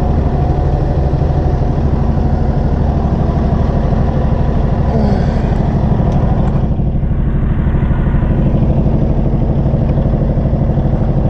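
Flail debarker-chipper's engine running at a steady speed, a loud, even mechanical drone with no change in pitch.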